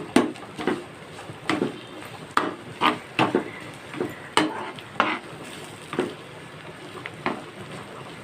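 A spoon stirring coated bitter gourd slices in a pan of hot oil on high heat, scraping and knocking against the pan in irregular strokes, with the oil sizzling steadily underneath.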